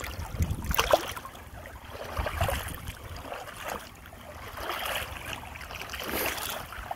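Shallow creek water splashing and sloshing as a hand moves through it, with a louder splash about a second in, over the steady flow of the creek.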